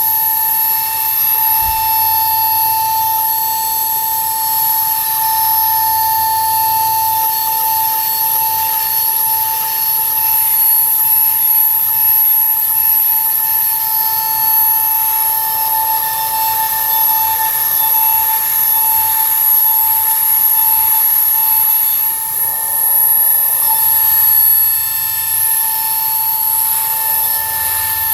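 CNC router spindle running with a steady high-pitched whine while milling 12 mm acrylic sheet.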